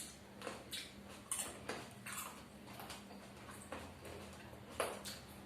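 Close-up chewing of a firm, not fully ripe guava: irregular short crisp crunches as it is bitten and chewed.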